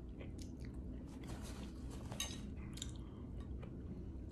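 Chewing a mouthful of baked macaroni, with soft scattered mouth clicks.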